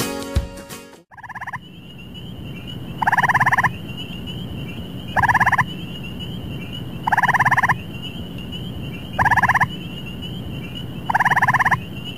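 Music cuts off about a second in, then a gray tree frog calls: short musical trills of rapid pulses, about one every two seconds.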